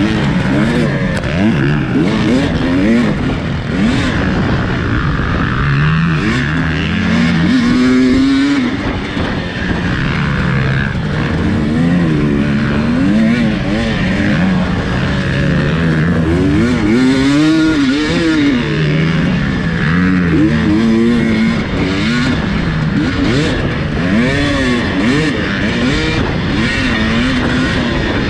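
Race car engine running hard, its pitch climbing and dropping again and again as it revs up and changes gear, over a steady rush of wind and road noise.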